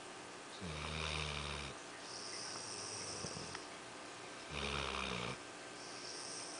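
Sleeping dog snoring: two low snores about four seconds apart, each lasting about a second, with a soft hissing breath between them.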